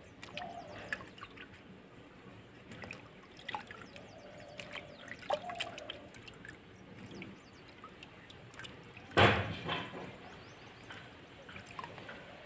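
Water dripping and splashing in a steel basin as hands peel and split wet mushroom stems, with small scattered clicks from the stems tearing. There is one louder splash about three-quarters of the way through.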